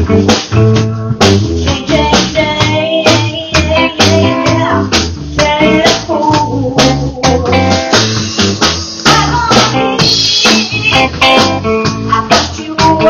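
Live band playing with electric guitar, electric bass and drum kit over a steady beat, with a woman singing.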